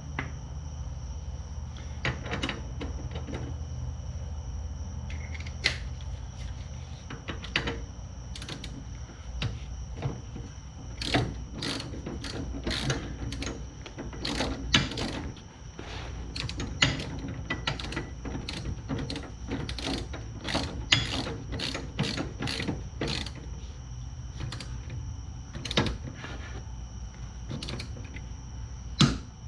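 Irregular metallic clicks and clinks of hand tools being handled, with short ratcheting runs, over a steady low hum. The clicks come thicker in the middle stretch.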